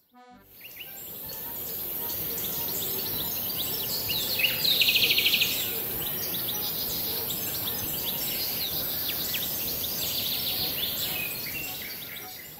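Outdoor ambience with many short high bird chirps over a steady hiss, and a louder, rapid pulsing trill about four and a half seconds in. The sound fades in at the start and fades out near the end.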